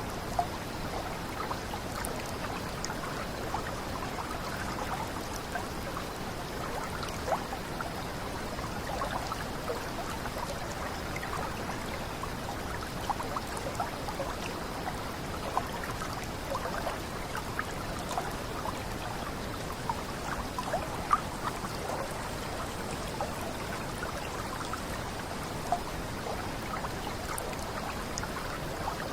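Water of a small cascade running steadily over rocks, a constant rush dotted with quick bubbling splashes.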